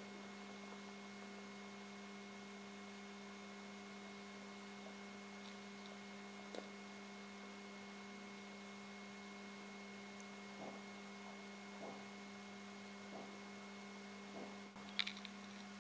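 Faint steady electrical hum, with a few faint clicks scattered through it.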